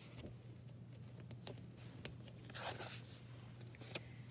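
Faint paper rustle of a picture book's page being turned by hand: a few light clicks, then a soft swish of the page about two and a half seconds in.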